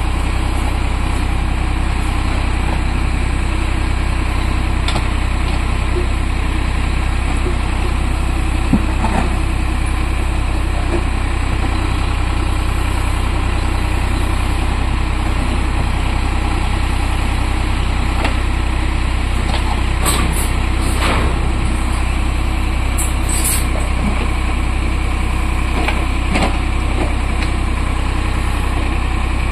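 Eicher 551 tractor's diesel engine running steadily while it drives a backhoe attachment digging soil and concrete slabs, with a few short knocks scattered through.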